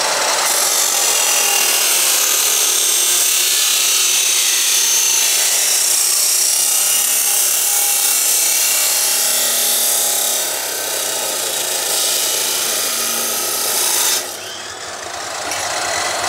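Yamasu YMS-355-1 2400 W abrasive cut-off saw grinding through steel with its 355 mm cutting disc, a loud, harsh grind. About fourteen seconds in the grinding stops suddenly and the motor runs on without load.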